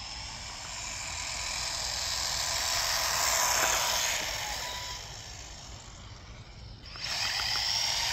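HBX Haiboxing 16890SA 1/16-scale RC truck on a 2S battery running flat out: a high motor and drivetrain whine with tyre hiss that grows to a peak about three seconds in and fades away, then rises again sharply about seven seconds in as the truck makes another pass.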